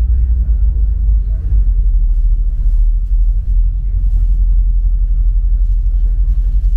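Deep, steady rumble aboard a passenger ferry under way, with faint voices in the background.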